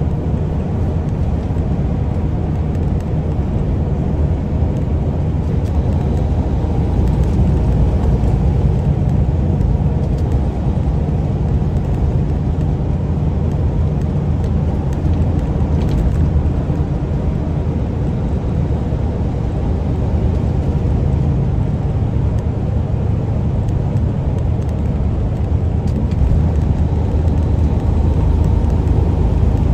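Semi truck's diesel engine and road noise heard inside the cab while cruising at freeway speed: a low, steady hum and rumble.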